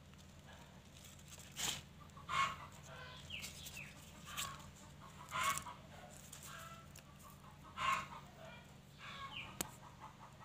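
Chickens clucking in short calls scattered a second or two apart, with a sharp click near the end.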